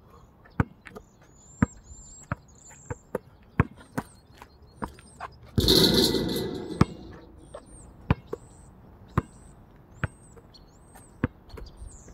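Basketball bouncing on an outdoor asphalt court, one sharp thud about every second. About halfway through, a shot hits the backboard and rim with one loud clattering crash that rings on for about a second. Birds chirp throughout.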